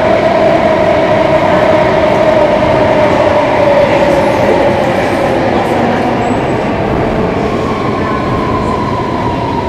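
Singapore MRT train running, heard inside the carriage: a steady rumble of wheels on rail with a motor whine that falls slowly in pitch, a second higher whine coming in later, and the whole sound easing slightly near the end.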